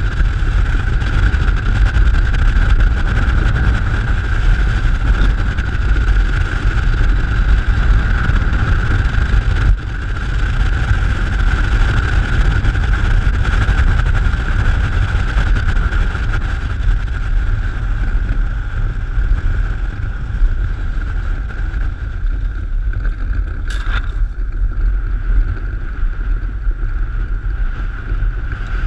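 Wind buffeting the microphone in a steady low rumble, over an even hiss and a constant high hum. A single sharp click sounds near the end.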